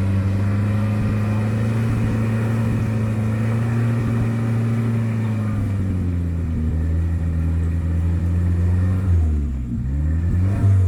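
Off-road 4x4's engine working at a steady pitch, then easing off about six seconds in; near the end the revs drop and climb again quickly, twice, as the throttle is worked.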